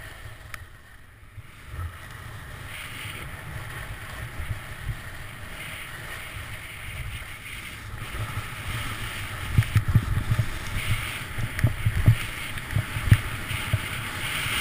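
Wind rushing over a skier's camera microphone during a fast descent, with the skis hissing and scraping on groomed snow in each turn. The wind buffeting grows heavier and gustier from about ten seconds in.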